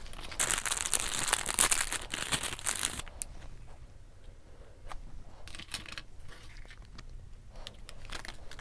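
Plastic snack wrapper crinkling and tearing as it is pulled open for about the first three seconds. After that come a few light clicks and rustles.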